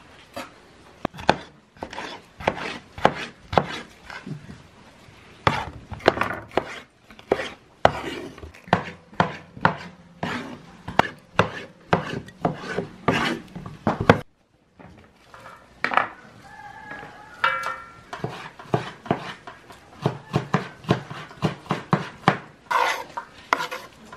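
Kitchen knife chopping peppers on a wooden cutting board: a run of sharp knocks, about two a second, with a short pause a little past the middle.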